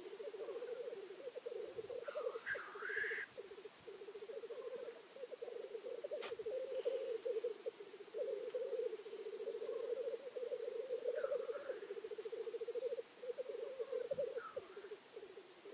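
Male black grouse bubbling in lek display: a continuous low, rapidly pulsing cooing chorus. A few brief higher hissing calls cut in about three seconds in, again after eleven seconds and near the end.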